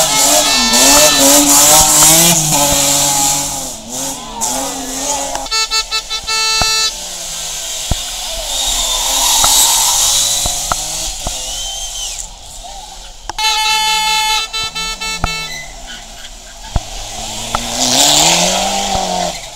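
Rally cars, a BMW 3 Series and a turbocharged Mitsubishi Lancer Evolution, take a hairpin one after another at full effort, their engines revving up and down through the gear changes. Twice a horn blows for a couple of seconds over the engines.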